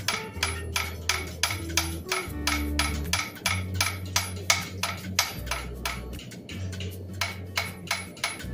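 Blacksmith's hand hammer striking hot metal on an anvil in a quick, steady rhythm of about four or five blows a second.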